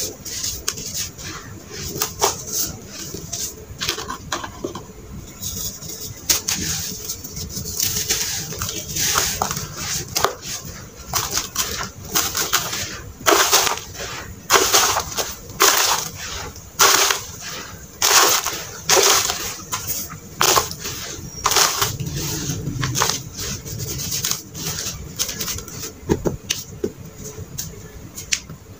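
Hands crumbling, rubbing and pressing gritty red sand in a plastic tub, close to the microphone: a run of crunching, scraping strokes, about one a second, loudest in the middle.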